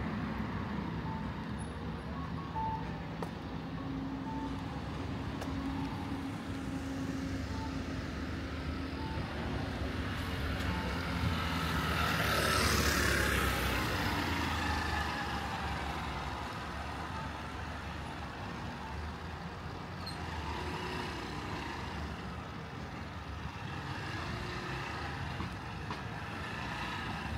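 Road traffic running past, with one vehicle passing close about halfway through, its noise swelling and then fading away. Early on a faint short beep repeats about every second and a half.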